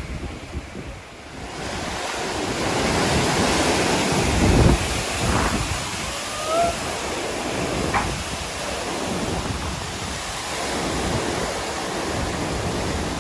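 Cyclone-force wind gusting: a continuous rush that swells about a second and a half in, with irregular low buffeting of wind on the microphone.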